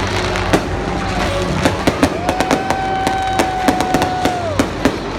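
Fireworks show: a rapid run of sharp bangs and crackles, with a steady high whistling tone held for about two seconds through the middle that drops away near the end.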